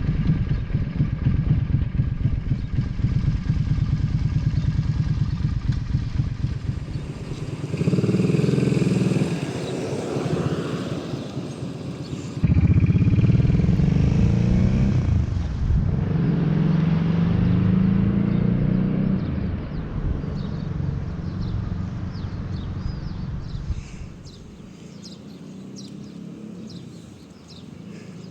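Suzuki Intruder Volusia V-twin motorcycle engine running and revving, heard in several edited clips that cut abruptly from one to the next. The pitch rises and falls with the revs, and the engine is quieter in the last few seconds.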